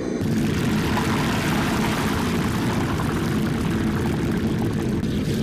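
Hot oil sizzling steadily in a wok as chunks of potato deep-fry, starting about a quarter second in, over a low steady rumble.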